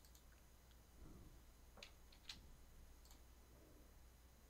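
Near silence with a few faint computer mouse clicks, two of them about two seconds in, over a low steady hum.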